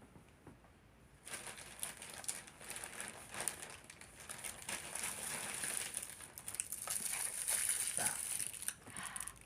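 Packaging crinkling and rustling as it is handled, starting about a second in and going on steadily.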